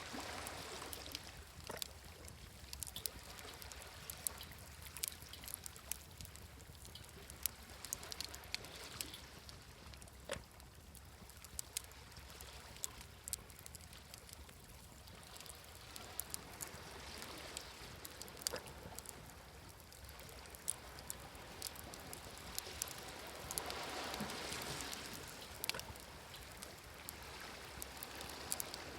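Wood campfire crackling with frequent sharp pops, over the wash of sea waves that swells in and out, most strongly near the end.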